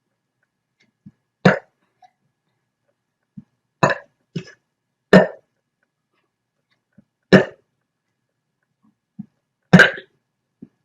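A person hiccuping and burping in quick succession: about six short, sharp sounds spaced one to two and a half seconds apart, with fainter low ones in between.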